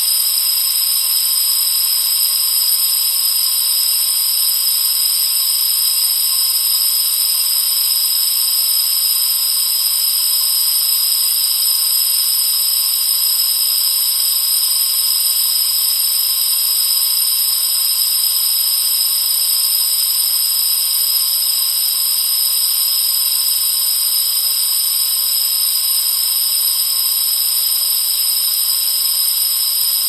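Compressed oxygen escaping from a cylinder valve: a steady, high-pitched hiss with a thin whistle in it, unchanging throughout.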